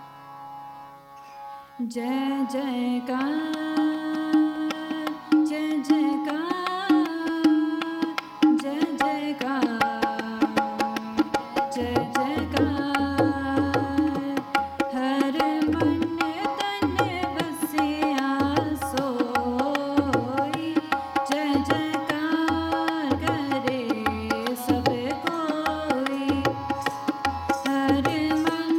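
Shabad keertan: a female voice singing a gliding devotional melody over a harmonium's held notes. The voice comes in about two seconds in, and the tabla joins with a steady beat about twelve seconds in.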